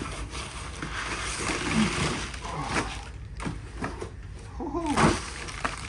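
Cardboard box and packing material rustling as they are handled, with a few knocks, and a short, bending voice-like sound about five seconds in.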